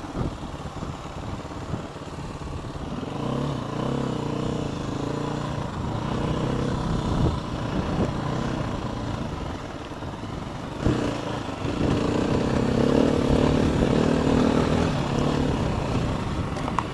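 Dirt bike engine running as it is ridden along a bumpy dirt trail, its note rising and falling with the throttle. A sharp knock comes about eleven seconds in, and the engine is louder after it.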